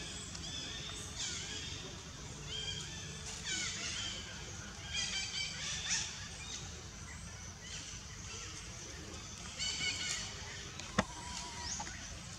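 Long-tailed macaques giving short, high calls that fall in pitch, in clusters every second or so. A single sharp click comes near the end.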